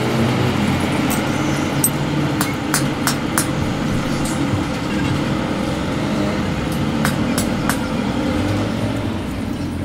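A steady low mechanical rumble, stronger near the start and again near the end, with a scatter of light clicks over it.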